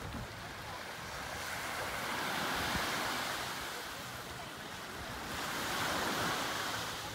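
Small waves breaking and washing up on a sandy beach, swelling twice, with wind on the microphone.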